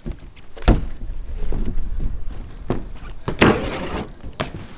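BMX bike riding on a concrete skatepark: tyres rolling over a low rumble, with a hard knock about a second in and more knocks later. Toward the end a rasping scrape sounds as the bike grinds along a metal rail, followed by a couple of knocks.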